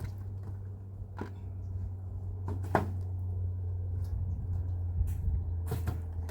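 A few sharp knocks, the loudest near the middle, over a steady low hum.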